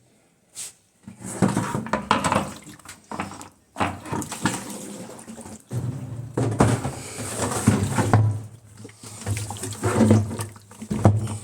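Water running and sloshing in uneven surges over a low hum.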